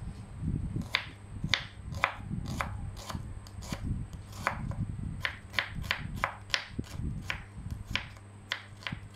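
Kitchen knife slicing shallots on a wooden cutting board: a quick, uneven series of sharp knocks as the blade strikes the board, about two a second and faster in the middle.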